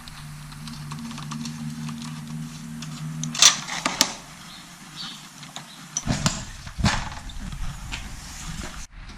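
Clatter and knocks of a Suzuki motorcycle's seat and fuel tank being taken off by hand: a loud clatter about three and a half seconds in, a click, then several knocks a couple of seconds later, over a steady low hum that stops when the clatter starts.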